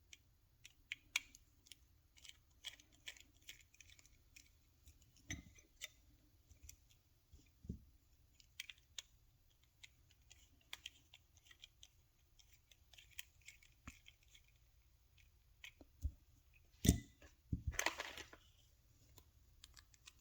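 Faint, scattered small clicks and scratches of a tiny T5 screwdriver working the screws out of a plastic key fob shell, with a louder clatter and scrape of small parts being handled near the end.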